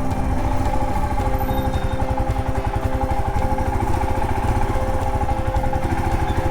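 Royal Enfield Himalayan's single-cylinder engine running with a fast, even beat of firing pulses.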